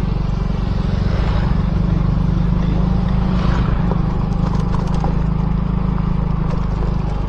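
Motorcycle engine running at a steady pace while riding, heard as an even low rumble.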